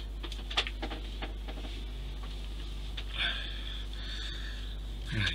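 Quiet handling of a plastic model ship's rigging, with a few faint clicks and taps as thread is worked around the mast, over a steady low hum. A brief breathy sound comes about three seconds in.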